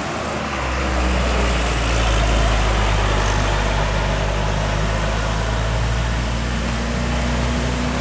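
A heavy road vehicle's engine running close by with a low, steady note that grows louder about half a second in, over road noise.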